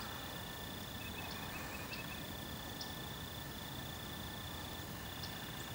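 Outdoor nature ambience: an insect trilling steadily in one high tone, breaking off briefly now and then. A quick run of faint bird chirps comes a second or so in, over a soft background hiss.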